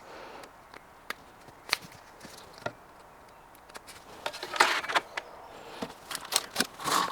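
Handling and fitting of tambour roller door track pieces: a few scattered light clicks and knocks, then a cluster of short scrapes and knocks about four seconds in and again near the end.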